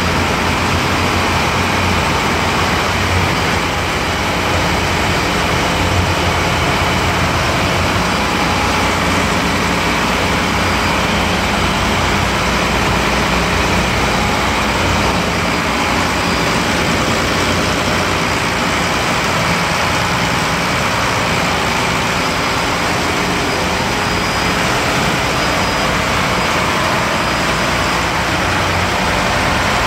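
Boat's engine running steadily and loud inside its engine room, with a constant low hum under a dense mechanical noise.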